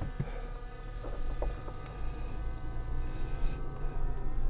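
Toyota 4Runner's engine and road noise heard from inside the cabin as the truck pulls away slowly: a steady low rumble with a faint hum and a few small clicks.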